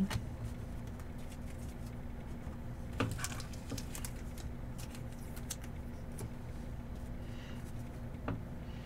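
Trading cards being handled, slid and flicked through in the hand, giving a few soft clicks and light rustles, the clearest about three seconds in and another near the end, over a steady low hum.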